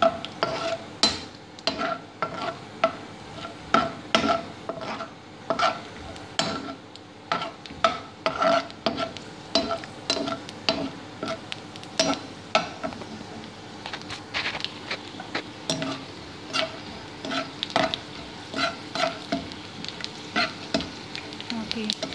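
A metal spoon stirring and scraping in a nonstick wok about twice a second, each stroke with a short metallic ring, over the sizzle of slivered almonds frying in olive oil until they brown.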